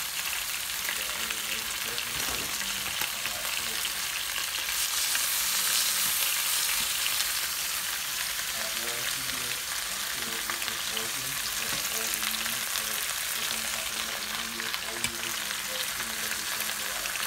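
Chicken thighs sizzling steadily in hot fat and juices in an electric skillet, a dense crackling hiss that swells a little for a few seconds about a third of the way in.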